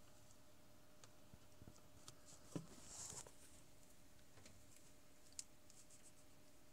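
Near silence with a faint steady hum, broken by a few small clicks, a sharper knock about two and a half seconds in with a brief rustle after it, and one more click near the end: handling noise as the camera is moved.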